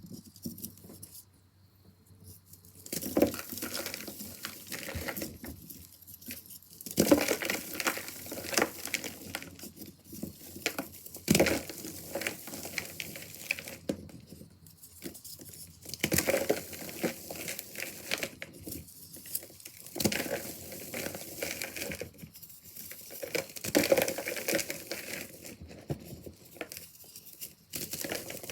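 Pressed chalk bars being crushed by hand, crunching and crumbling apart in a run of irregular crackly crunches as the powder breaks up.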